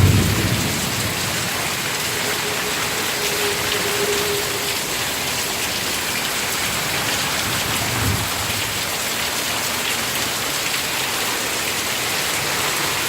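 Heavy rain pouring down steadily in a thunderstorm, with a brief low rumble near the start and another about eight seconds in.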